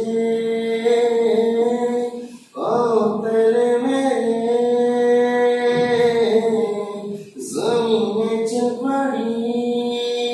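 A man's voice singing unaccompanied in a slow melody of long held notes, in three phrases with short breaks about two and a half and seven and a half seconds in.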